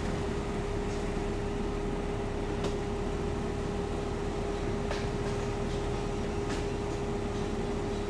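Steady mechanical hum with one constant mid-pitched tone, and a few faint ticks about every two seconds.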